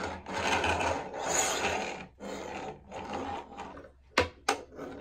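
Cars 3 Track Talkers toy cars, Lightning McQueen and DJ, rolling back and forth on a wooden tabletop in several pushes, their wheels rumbling and scraping, with two sharp knocks about four seconds in.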